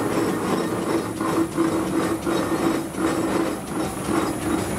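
Working machinery running with a rhythmic mechanical clatter, about three knocks a second, over a steady hum.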